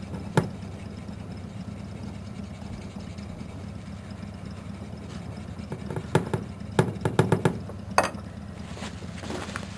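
A steady low hum with a single sharp knock near the start and a cluster of sharp knocks and clicks about six to eight seconds in.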